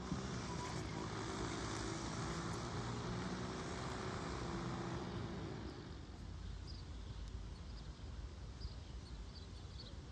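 An engine passing by: a steady hum over a wash of noise that fades out about six seconds in. After it, quieter outdoor ambience with a few faint high chirps.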